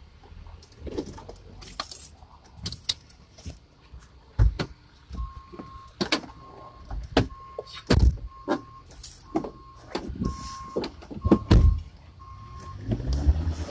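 Clunks, knocks and rattles from someone moving about in the cab of a parked Ford E-Series van, with a high warning chime that sounds on and off from about five seconds in until shortly before the end.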